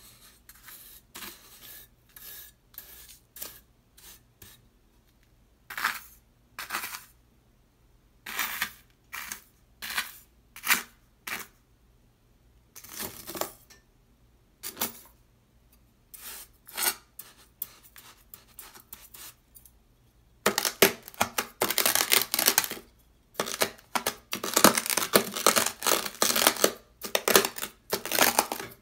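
Dry beach sand crunching as a white ceramic knife is pressed and dragged through it on sandpaper. The crunches come singly, about one a second, and then about two-thirds of the way in they turn into a dense, louder run of crunching.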